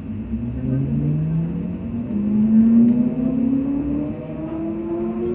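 Class 334 electric multiple unit's traction motors whining as the train accelerates away from a standstill, several tones climbing together steadily in pitch.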